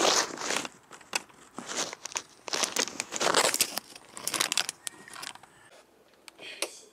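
A fleece blanket and mosquito netting rustling and crinkling right against the microphone as they are pushed aside, in uneven spells with a few sharp clicks.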